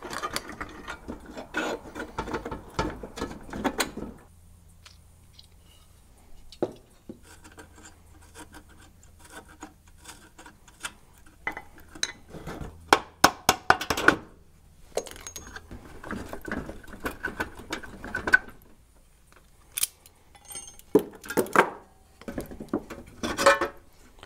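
Hand ratchet clicking in several bursts, with clinks and knocks, as screws are backed out of an old baby stroller.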